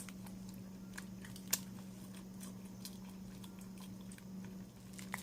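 A person quietly chewing soft bread, with scattered faint mouth clicks and one sharper click about a second and a half in, over a steady low hum.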